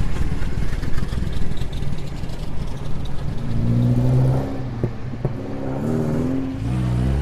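An old car's engine running and revving, its pitch climbing and falling again in the middle of the stretch, with a couple of short clicks.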